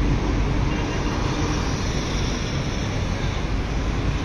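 Steady drone of passing road traffic mixed with heavy construction machinery running.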